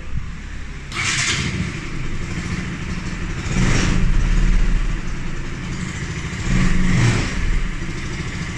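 Bajaj Pulsar NS 200's single-cylinder engine running and revved up twice, once near the middle and again about two seconds later. It runs without the strange noise now that the camshaft has been replaced.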